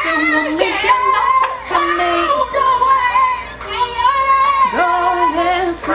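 A singer belting a soulful song over backing music, the voice sliding and wavering through long held notes and runs.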